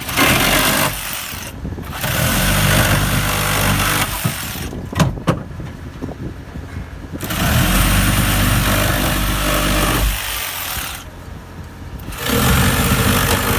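Powered machinery running in four bursts of a few seconds each, with a low engine-like hum under loud hiss and quieter gaps between.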